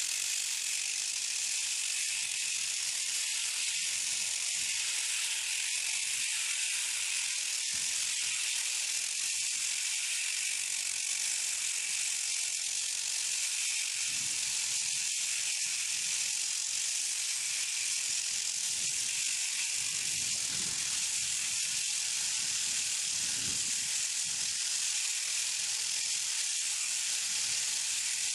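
Malish Diamabrush diamond abrasive tool grinding across a painted surface: a steady, harsh hiss with no pauses. The abrasion feathers the paint coating without fracturing its bond to the substrate.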